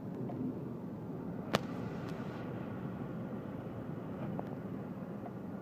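Steady low background rumble, with a single sharp click about one and a half seconds in.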